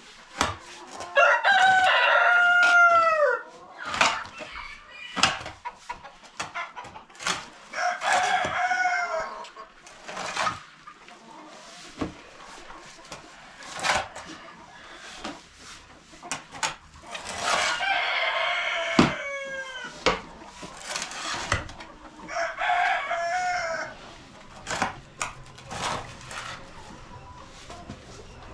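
Rooster crowing about four times, each a long call that falls in pitch at the end, with scattered short knocks and clicks in between.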